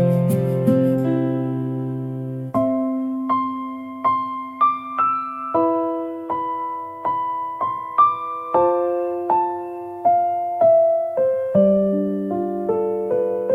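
Background music: a gentle piano or electric piano melody, single notes struck one after another and left to ring over soft low chords.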